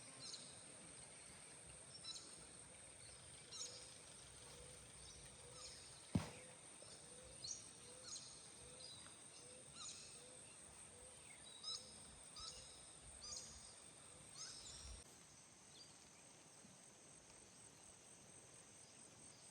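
Faint outdoor ambience with birds chirping repeatedly and a steady high-pitched hum that stops about fifteen seconds in. A single sharp click comes about six seconds in.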